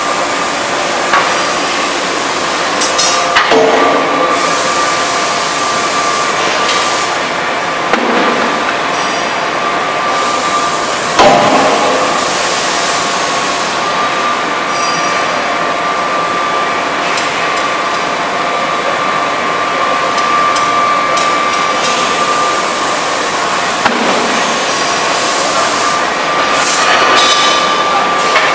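CNC hydraulic closed-die forging hammer striking a handful of times, the heaviest blow about eleven seconds in. Under it run a steady drone with a constant whine and spells of high hissing.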